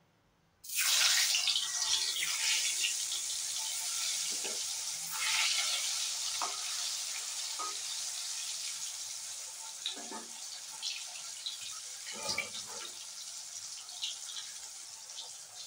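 Sliced vegetables deep-frying in hot oil in an aluminium kadai: a loud sizzling hiss starts suddenly about a second in as they go into the oil and slowly softens, with a few pops and light knocks.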